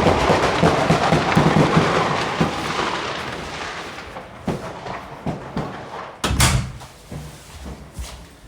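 New Year's Eve fireworks and firecrackers going off: a dense rapid crackle for the first few seconds that slowly dies away, then scattered single bangs, the loudest about six seconds in, with an echo.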